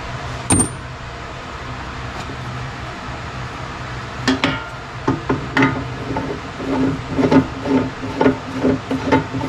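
Electric motor of an old Craftsman wood lathe humming steadily, with a sharp click about half a second in. From about four seconds in come knocks and taps that settle into a quick, regular rhythm near the end.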